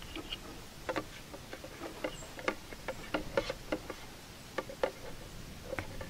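Hand pump of an oil suction kit being worked to start a siphon of engine oil up from the crankcase through the dipstick tube, giving a string of irregular sharp clicks.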